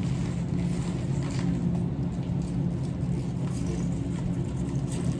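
Steady low hum of a store's background, with faint rustling and light knocks as a shrink-wrapped case of bottled water is handled.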